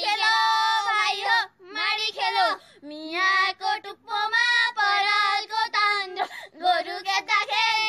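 A high-pitched female voice singing a traditional Nepali threshing song unaccompanied, in short wavering, drawn-out phrases with brief breaks between them.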